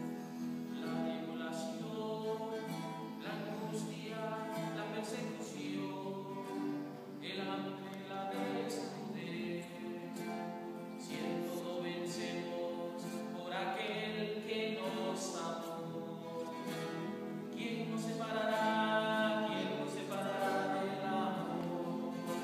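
Choir singing slow, sustained notes.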